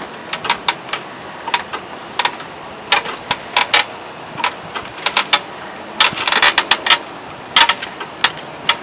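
ATD 7331 hydraulic service jack being pumped to raise a car, giving irregular metallic clicks and clacks, thickest in a quick cluster about six to seven seconds in.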